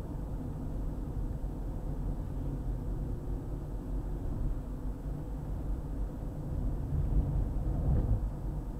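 Car driving along a highway: a steady low rumble of road and engine noise that swells a little near the end.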